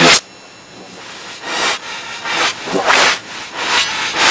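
Reversed, pitch-shifted audio of a boy shouting and banging on a computer keyboard, heard as hissy, distorted noise bursts that swell and then cut off abruptly. The loudest burst comes right at the start, and the bursts come thicker toward the end.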